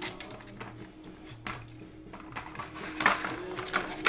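Hard plastic bone-shaped treat puzzle clattering and knocking on a hardwood floor as a small dog noses and paws at it for food. The clicks are irregular, with the loudest knock about three seconds in.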